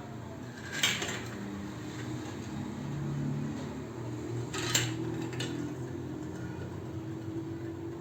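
Sharp clicks of hard plastic marble-run pieces knocking together: two loud ones about four seconds apart, the second followed shortly by a fainter one, over a steady low hum.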